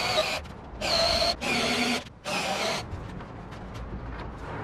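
Cordless drill boring holes into a plywood tabletop, in four short bursts of about half a second each over the first three seconds, followed by quieter low background noise.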